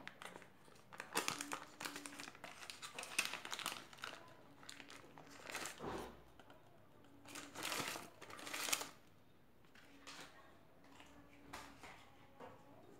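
Butter's paper wrapper crinkling and rustling in short, irregular bursts as the butter is unwrapped and added to the mixer jar.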